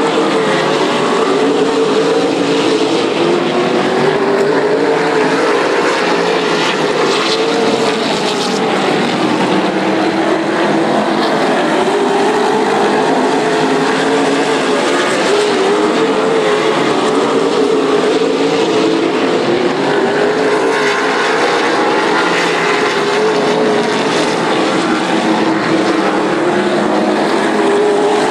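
A field of late model stock cars racing on a paved oval, their V8 engines running hard in a loud, continuous drone whose pitch wavers up and down as the cars go down the straights and through the turns.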